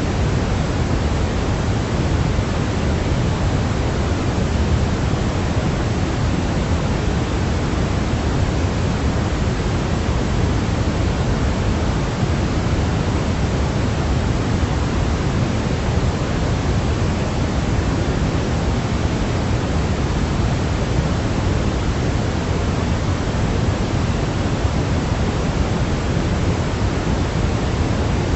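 Steady, unchanging sleep noise played for a baby: an even hiss with no rhythm or breaks, heavier in the low end, closer to pink noise than thin white noise.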